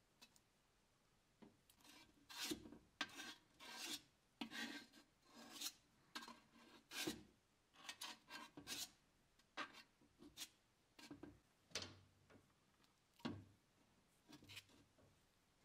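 Spreader scraping white filler paste across the rusty steel shell of an M17 helmet: a run of short, uneven scraping strokes, faint, starting about a second and a half in.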